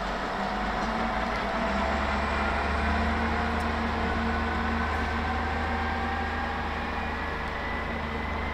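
Tka7 rail truck's diesel engine running steadily as the vehicle drives along the track, its low note shifting about two seconds in, with a faint whine that slowly rises in pitch.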